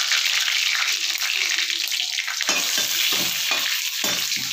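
Whole spices (black cardamom, cloves, cinnamon and bay leaves) sizzling in hot oil in a kadhai, a steady frying hiss as the spices temper. About halfway through, a utensil starts stirring in the pan, adding short low strokes over the sizzle.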